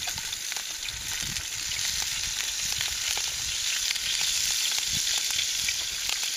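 Whole unscaled perch frying in vegetable oil in a hot pan over a campfire: a steady sizzle with scattered small crackles, growing a little louder about two seconds in.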